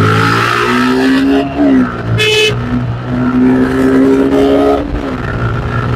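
Suzuki Gixxer SF 155 single-cylinder engine running while riding, holding a fairly steady pitch with small shifts, plus a brief high-pitched beep about two seconds in.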